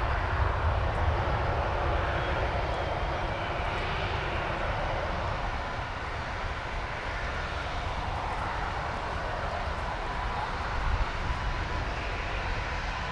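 Jet airliners' turbofan engines running at taxi power: a steady rumble with a faint whine.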